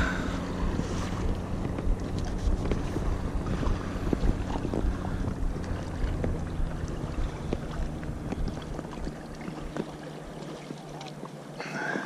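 Wind buffeting the camera microphone in a low rumble, with scattered light ticks and knocks from handling. The rumble eases off about ten seconds in.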